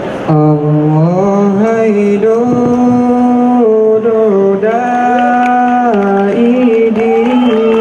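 A male voice chanting a slow, unaccompanied opening melody in long held notes that glide from pitch to pitch, in the manner of the solo sung introduction of an Acehnese dance.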